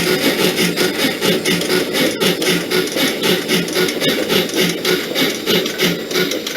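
Steam locomotive chuffing from a KATO sound box, a recording of a D51 steam engine played through its speaker, in a steady beat of about three chuffs a second.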